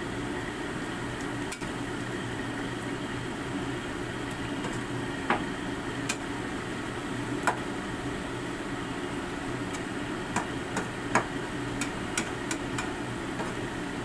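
Metal spatula clinking and scraping against a wok while mushrooms and bok choy are stirred in it: a dozen or so sharp clinks, more frequent in the second half, over a steady hiss.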